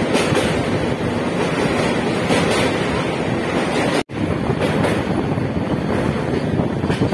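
Steady rushing noise of a moving train with air buffeting the microphone at an open window. The sound cuts out for an instant about four seconds in.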